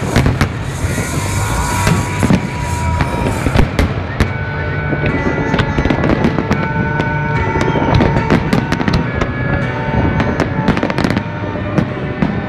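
Aerial fireworks shells bursting and crackling in quick succession, many sharp bangs, with music playing underneath.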